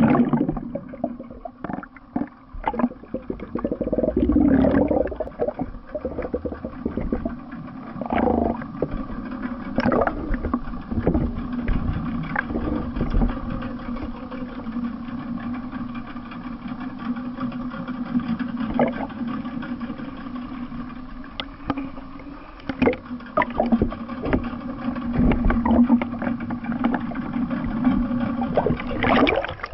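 Boat engine hum heard underwater through the camera's housing, steady throughout, with scattered clicks and knocks and water noise.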